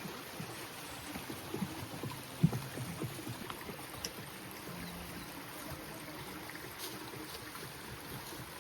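Mountain stream running steadily through the gorge, an even rushing of water. There is a single sharp knock about two and a half seconds in.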